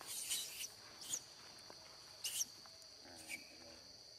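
Steady, high-pitched insect drone in forest, with four short, high squeaky calls over it that drop in pitch at their ends, the first and loudest right at the start.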